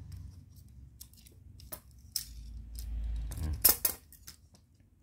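Light metallic clicks and clinks from an aluminium U-frame coping saw and its thin blades being handled, with a louder cluster of sharp clicks about three and a half seconds in as the frame is taken apart from its handle.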